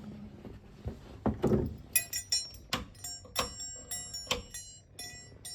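A door thuds shut. Then metal keys jangle and clink repeatedly, with a bright metallic ring on each clink.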